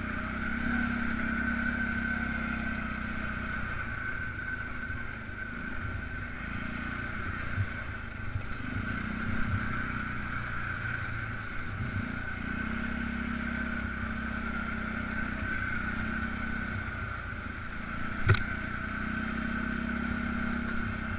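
Polaris Sportsman 500 ATV's single-cylinder four-stroke engine running at low, shifting speed as it is ridden along a trail. A single sharp knock comes about eighteen seconds in.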